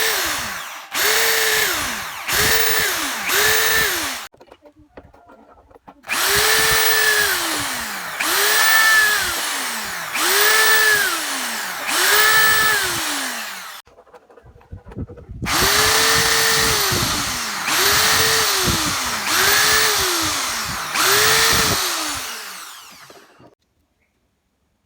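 Electric drill run in short trigger bursts of about a second each, the motor spinning up and winding down every time. There are thirteen bursts in three runs of four, five and four, separated by brief pauses.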